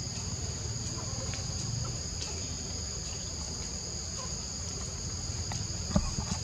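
Insects droning steadily at two high pitches, over a low rumble, with one sharp knock about six seconds in.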